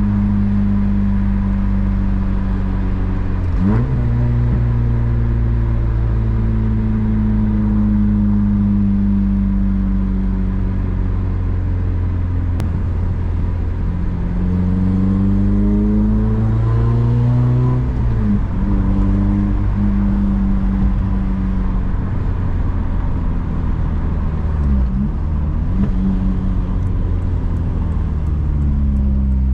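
Honda Civic Si engine and exhaust while driving: a steady engine note that drifts slowly lower, climbs in revs about halfway through, and has brief breaks about three and a half seconds in and again near the middle, with a few quick dips later on.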